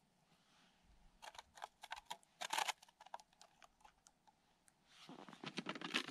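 Light plastic clicks and scrapes as a winter tip-up (zherlitsa) is handled and set down over a hole in the ice, then, near the end, denser crunching of snow and crinkling of a plastic water jug being picked up from the ice.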